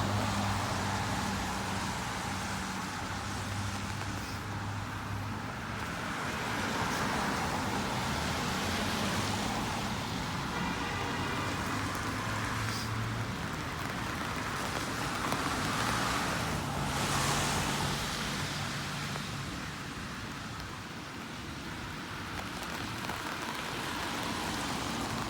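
Rain falling, with car traffic on a wet street: a steady hiss and a low engine hum, and a car passing with a swell of tyre noise about two-thirds of the way through.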